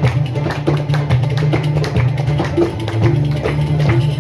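Live ensemble music led by an oud playing quick plucked notes over a steady low bass line.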